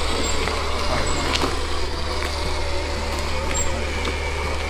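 Electric-drill motor driving a small homemade wooden go-kart, its wheels rolling over asphalt.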